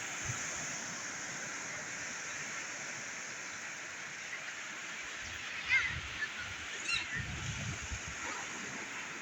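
Steady rushing of surf breaking on a beach, with two brief high calls about six and seven seconds in.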